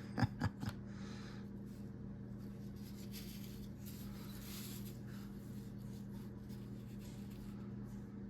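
Three quick knocks in the first second, then faint scraping and rustling of hand work on a workbench, over a steady low hum.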